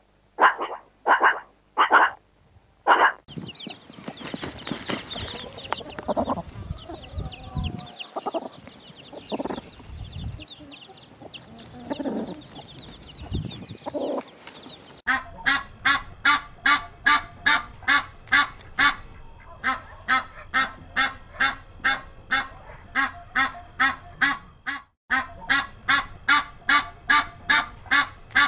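Meerkats give short calls about twice a second. Then a hen clucks low among her chicks' constant high peeping. From about halfway through, mallards quack in a steady series of two or three quacks a second.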